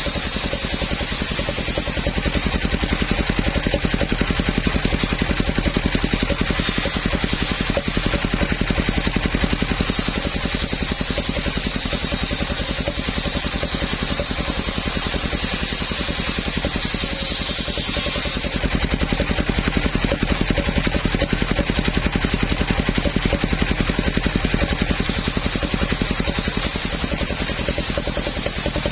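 Engine driving a homemade circular-saw sawmill, running steadily with a rapid, even firing pulse. A high hiss fades and returns a few times over it.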